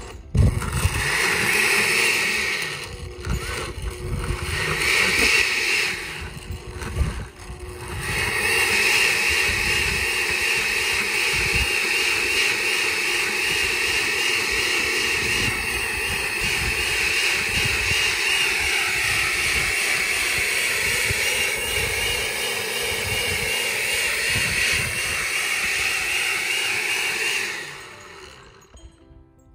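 Countertop blender puréeing soaked chilies into a chili sauce. It starts and stops a couple of times, then runs steadily for about twenty seconds and is switched off near the end.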